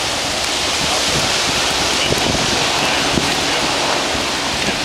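Wildfire burning through conifer trees: a steady rushing noise with scattered crackles and pops.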